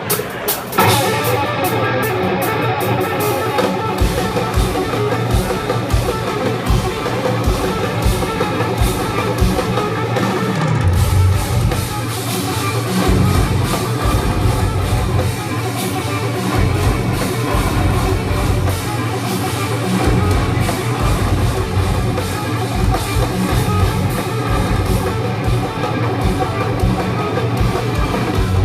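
Instrumental progressive metal band playing live: electric guitars over a drum kit. Low drum hits come in about four seconds in and grow denser from about eleven seconds.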